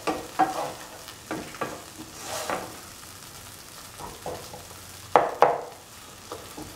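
A perforated metal spatula scraping and stirring a thick tomato-onion masala frying in a pan, with a sizzle underneath. The strokes come in irregular clusters, ease off about three seconds in, then return with two loud scrapes a little after five seconds.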